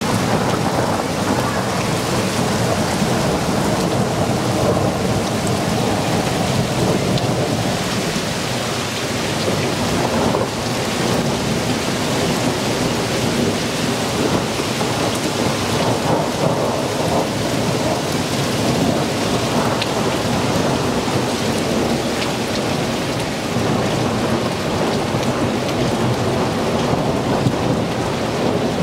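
Hail and rain falling heavily on a paved street, a steady, dense noise that does not let up.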